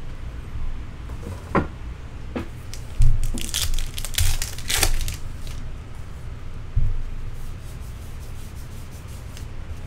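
A trading-card pack wrapper is torn open and crinkled, loudest in a burst about three to five seconds in, with a couple of low thumps. Then comes quieter handling as the cards are shuffled through.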